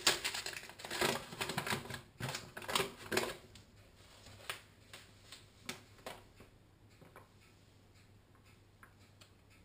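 Paper bag of caster sugar being handled, crinkling and clicking, for about the first three seconds. After that come scattered faint ticks as the sugar is poured from the bag into a mixing bowl on the scales.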